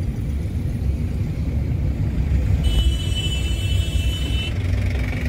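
Steady low rumble of a car driving, heard from inside the cabin. A high, steady tone sounds over it for about two seconds near the middle.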